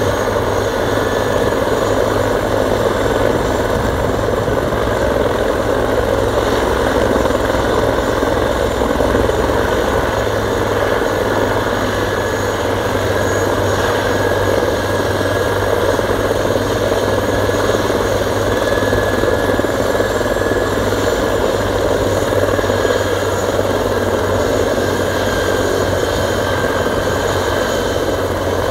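Bell 412EP twin-turboshaft helicopter running on the ground with its rotors turning, a steady turbine whine over the rotor noise with no change in pitch.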